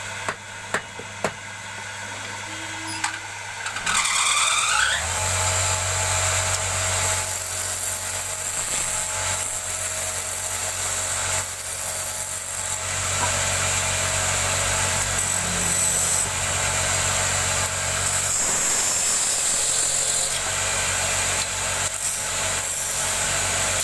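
Custom-built wood lathe's motor spinning up with a rising whine, then running steadily with a low hum while a turning tool cuts the spinning wood with a bright hiss.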